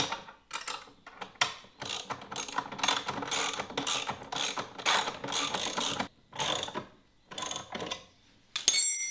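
Ratchet wrench with a 7/16-inch socket clicking in quick runs as a nut is tightened onto a steel bolt, with brief pauses between strokes. Near the end there is a short metallic ring.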